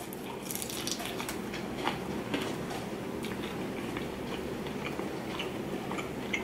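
Biting into and chewing a fried bone-in chicken wing dipped in ranch: scattered short crunches and wet mouth clicks, a couple of sharper ones about two seconds in.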